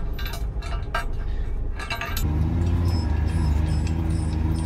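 Metal clinking as bolts and nuts are fitted to a steel crash-barrier post and its base plate. About two seconds in, a vehicle engine comes in with a steady low drone and becomes the loudest sound.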